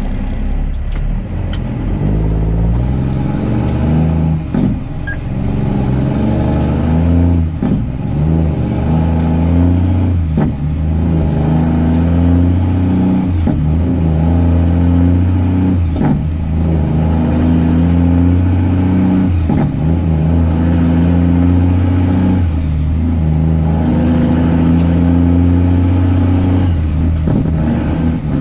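Straight-piped Cummins diesel in a Kenworth C500 pulling up through the gears. The engine note climbs in each gear and drops back at each of about eight shifts, with a high whistle that rises and falls along with it.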